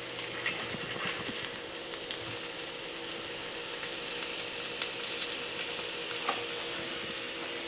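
Seasoned lake trout fillets sizzling steadily as they sear in oil in a hot enamelled cast-iron skillet, with a few light clicks scattered through.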